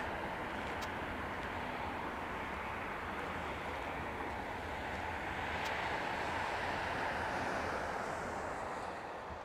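Boeing 787-9 airliner's jet engines during takeoff, a steady rumble and hiss.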